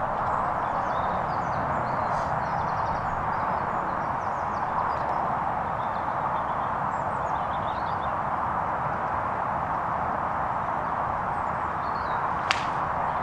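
A golf club striking a ball once near the end, a single sharp crack, over steady outdoor background noise.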